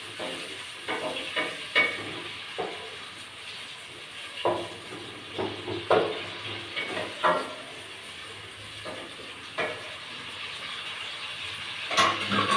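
Wooden spoon stirring and knocking against a steel cooking pot on a gas stove, with irregular clacks and a louder knock near the end, over a steady sizzling hiss of food frying in the pot.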